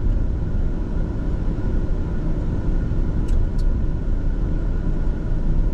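Steady driving noise inside a pickup cab: engine and road rumble with the AC blower running at high fan speed. Two brief faint ticks come a little past the middle.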